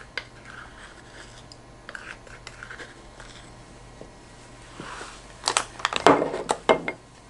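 Light scraping and tapping of a measuring spoon against a bowl, then about five seconds in a run of louder clicks and rustles as containers and plastic packaging are handled on the table.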